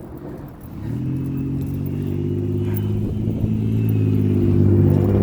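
A motor vehicle's engine running at a steady pitch, starting about a second in and growing louder as it comes nearer.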